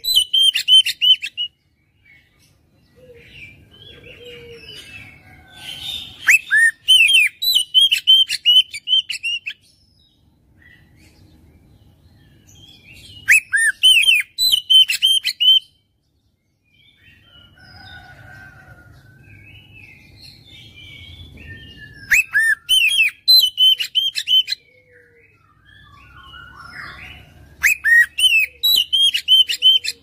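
Oriental magpie-robin (kacer) singing: five loud phrases, each a few swooping whistles and then a fast run of repeated sharp notes, the 'tembakan' of a kacer in full song. Softer scattered notes come between the phrases.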